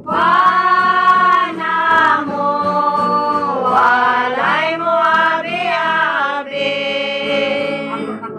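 Live singing with acoustic guitar accompaniment: a loud voice holds long notes and slides between them over the guitars.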